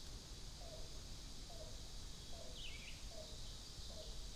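Faint summer forest ambience: a soft low call repeating about once a second, with a couple of higher, falling bird notes over a steady hiss.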